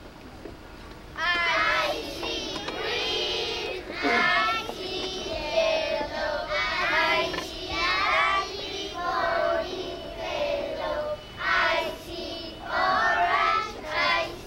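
Children singing a song, in short phrases with brief breaks, beginning about a second in.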